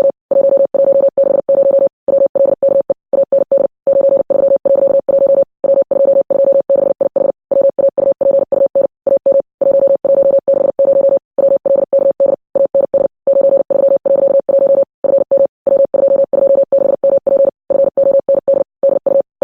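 Morse code: a single steady mid-pitched tone keyed on and off in short dots and longer dashes, sending without a pause.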